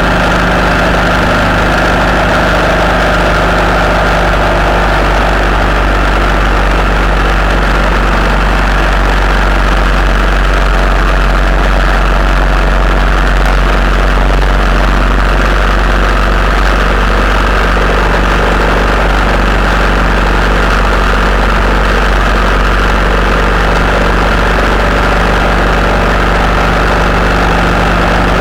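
Steady drone of a vehicle engine at motorway cruising speed, with road and wind noise.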